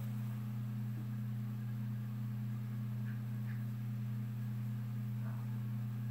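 A steady low hum of two tones that holds unchanged throughout, with a few faint soft rustles.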